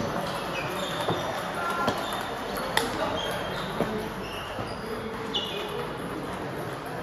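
Table tennis hall sounds: sharp clicks of celluloid ping-pong balls striking bats and tables, a handful about a second apart, with short high squeaks of sneakers on the sports floor.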